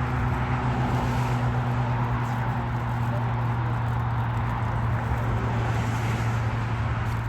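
Jet airliner engines giving a steady low drone with a broad rushing roar over it, holding level without rising or falling.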